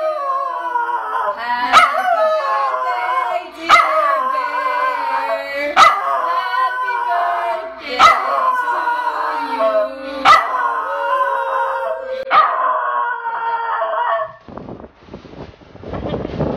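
A small white dog howling along with a woman who howls with it, their long wavering notes overlapping, with a sharp click about every two seconds. Near the end the howling stops and a wind-like rush takes over.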